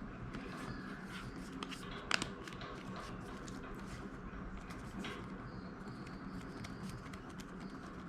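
Light clicks and taps of an iPhone 6s screen assembly being handled and pressed back into its frame, with one sharper click about two seconds in, over a steady low hum.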